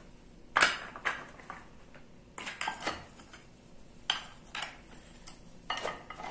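Clicks and knocks of 3D-printed plastic forming plugs and a fixture being handled and set into a manual arbor press. Single sharp knocks at irregular intervals, with the loudest about half a second in and a quick run of several clicks around two and a half seconds in.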